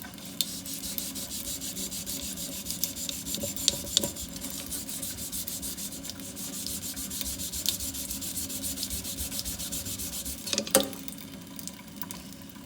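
Aluminum drip rail moulding being scrubbed by hand to clean and polish it: quick, even back-and-forth rubbing strokes. There is a single sharp knock near the end.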